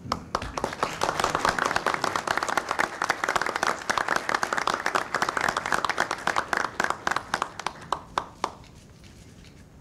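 Crowd applauding: dense clapping that thins to a few last scattered claps and dies away about eight and a half seconds in.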